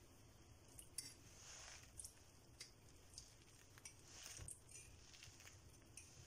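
Faint trickle of cold sugar syrup poured from a glass through a stainless-steel mesh strainer onto a hot basbousa cake, with a few light clinks of glass and metal.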